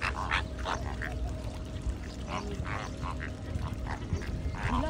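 A flock of greater flamingos calling: many short, goose-like honks overlap, several a second, over a low steady rumble.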